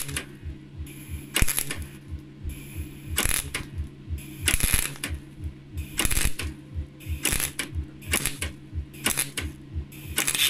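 MIG welder arc crackling on thin car body steel in a series of short bursts, the trigger pulled and released about nine times to lay the weld in stitches. Under it runs a steady hum with a low pulse about three times a second.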